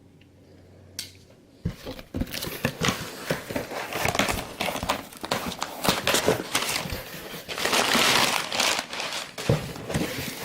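Packing material crinkling and rustling as a cardboard shipping box is unpacked by hand, starting after a single click about a second and a half in and going on in irregular handfuls.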